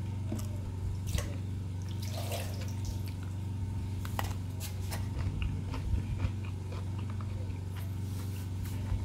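Someone eating abacha (shredded cassava salad) with a metal spoon from a plastic food cooler: scattered clicks of the spoon against the container, and chewing. A steady low hum runs underneath.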